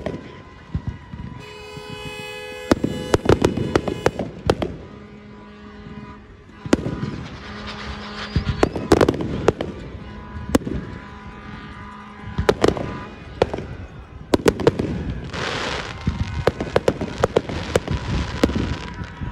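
Aerial fireworks going off: a long series of sharp bangs as shells burst, with crackling shells, densest near the end.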